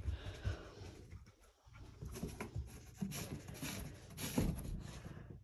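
A standard poodle sniffing and nosing around cardboard boxes while searching for a hidden peppermint scent: faint, irregular short sniffs and rustles.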